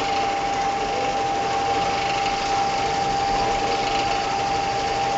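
Plastic cup ring-cutting machine running steadily: an even mechanical noise with a constant steady tone through it.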